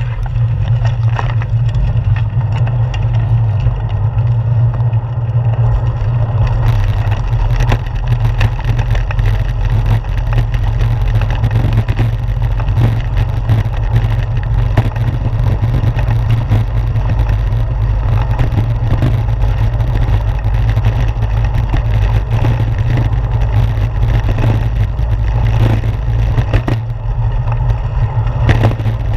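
Steady low rumble of wind and road noise on a handlebar-mounted GoPro Hero 4 riding on a moving bicycle. From about six seconds in, a dense, continuous rattle joins it as the tyres roll over a brick-paved street.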